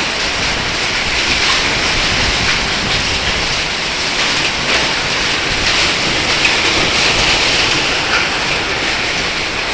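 Heavy rain with hail falling, a steady dense hiss with a few faint scattered knocks of hailstones striking.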